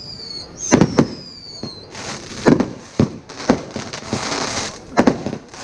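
Consumer salute cake firing: about eight sharp bangs at uneven intervals, with falling whistles and a hiss between them.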